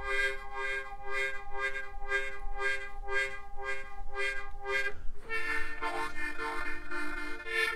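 Harmonica playing chords in a pulsing rhythm, about two pulses a second. About five seconds in it moves to steadier held chords on lower notes.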